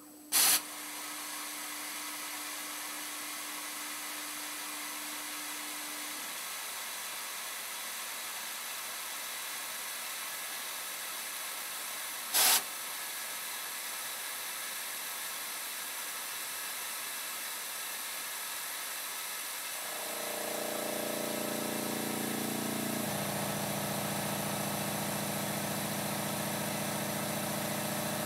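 Voortman beam milling machine cutting rat holes in a steel H-beam: a steady, hissing machining noise. Two sharp clicks stand out, one about half a second in and one about twelve seconds in. About twenty seconds in, a deeper hum of several steady tones comes in and shifts pitch a few seconds later.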